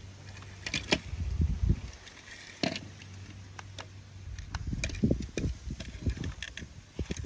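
Plastic toy monster trucks handled and knocked about: scattered clicks, rattles and dull thumps in two busy spells, over a low steady hum that stops about two seconds in.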